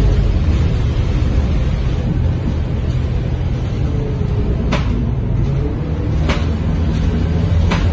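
Scania K230UB city bus heard from inside the cabin while driving: its diesel engine and ZF automatic gearbox run with a steady low drone and a faint whine. Three short sharp knocks come in the second half.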